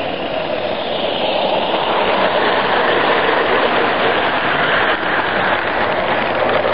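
Accucraft C-16 live steam garden-railway locomotive steaming past close by, its steam exhaust followed by the wheels of its freight wagons running over the track.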